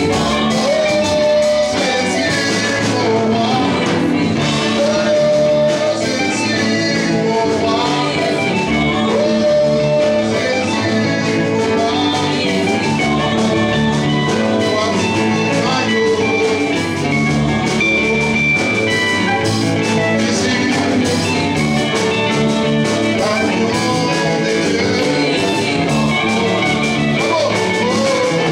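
Band music with guitar and a singing voice, playing steadily without a break.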